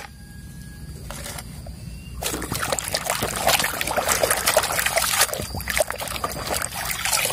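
Water sloshing and splashing in a basin as a hand scrubs a muddy toy car under the water. It is quieter at first, then splashes steadily from about two seconds in.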